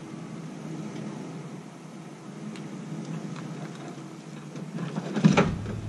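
Pickup truck engine running steadily as it pulls a flatbed trailer forward, with one loud clunk about five seconds in.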